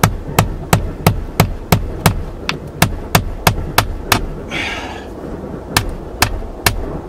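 Hammer blows at a steady three or so a second, driving a nail up through the OSB roof sheathing from inside the attic. The nail marks the centre of the exhaust-fan hole so it can be found from the roof. The blows pause briefly a little past the middle, where there is a short rustle.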